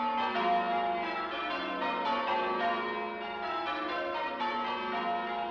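Church bells ringing, struck one after another in quick succession so that their tones overlap.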